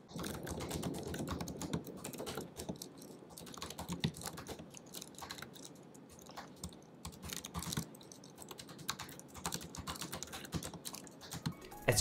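Typing on the Aftershock Apex 17 laptop's built-in mechanical keyboard with brown tactile switches: a continuous run of rapid key clicks, as quiet as any normal keyboard with brown switches.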